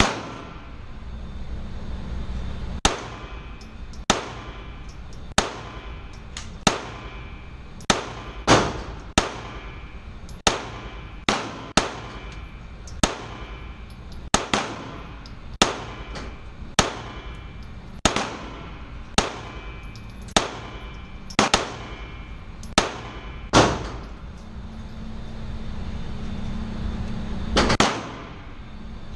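Glock 17 Gen 5 9mm pistol firing a string of about twenty shots, roughly one a second, each ringing off briefly in an indoor range. A steady low hum sits under the last few seconds.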